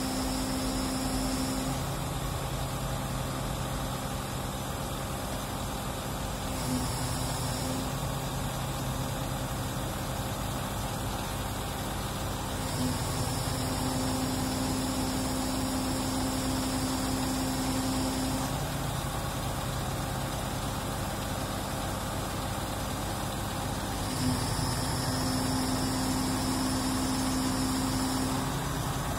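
Mobile truck crane's diesel engine running steadily, its note switching back and forth between two steady pitches every few seconds, with a faint click at some of the changes.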